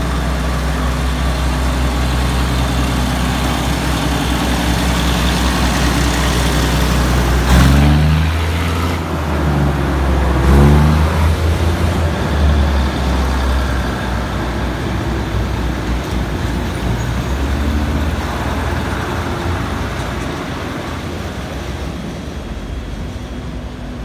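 Diesel railcar train pulling out of a station. Its diesel engines run steadily, then rise in pitch as they throttle up, about eight seconds in and again about eleven seconds in. After that the sound fades slowly as the train draws away.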